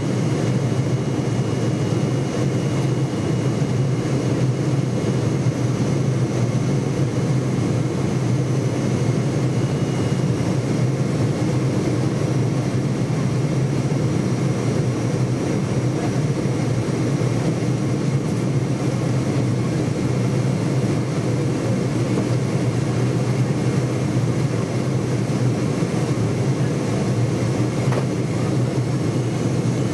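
Steady cabin noise inside a Boeing 747 in flight on approach, heard from a window seat by the wing: the even drone of its Rolls-Royce RB211 engines and airflow, with a deep hum and faint steady high whines above it.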